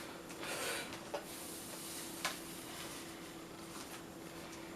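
Light handling of sticker packs: a brief rustle of packaging and two small clicks, over a faint steady hum.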